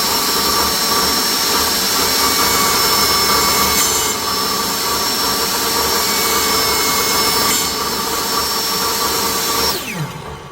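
Ryobi table saw running at full speed with a steady whine while cutting a thin piece of wood. Near the end the motor is switched off and its pitch falls as the blade winds down.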